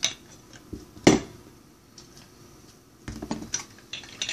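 Kitchen utensils handled on a counter: a sharp knock about a second in, then a short rattle of clinks near the end.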